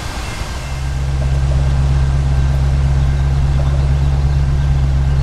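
A large engine running steadily with a deep, even hum that grows louder about a second in and then holds.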